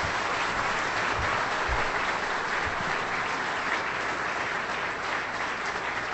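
Audience applauding steadily, a dense even clapping from a large crowd in a hall.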